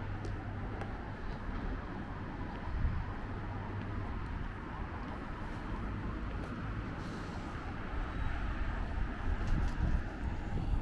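Steady city traffic noise: the low hum of cars passing on a nearby road.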